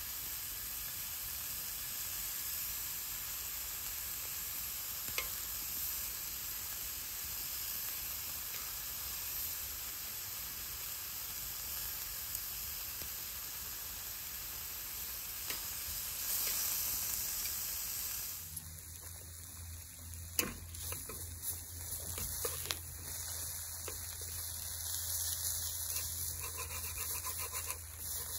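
Beef strips and vegetables sizzling on a griddle pan over a portable gas stove. About two-thirds of the way through the sound changes abruptly to a quieter frying with a low hum and a few sharp clicks of chopsticks against the pan as the meat is turned.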